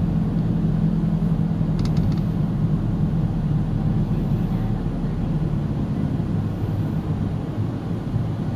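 Steady low road-and-engine rumble of a car driving at speed, with a few light clicks about two seconds in.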